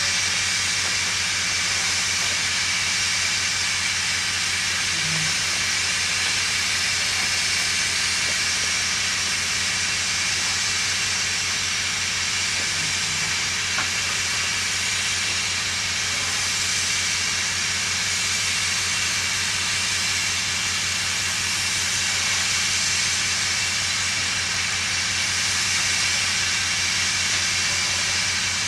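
Garratt steam locomotive hissing steadily with no exhaust beats, over a low hum.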